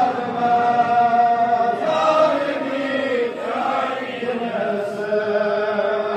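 Male voices chanting a devotional recitation, with long held notes that waver and bend in pitch.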